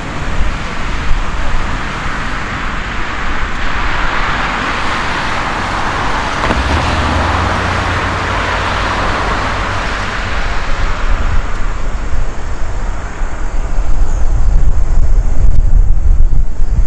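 Boeing 747-8F freighter's four GEnx turbofan engines at takeoff thrust during the takeoff roll and liftoff: a broad rushing jet noise builds over the first several seconds, then a deep low rumble grows and is loudest near the end as the aircraft lifts off and climbs.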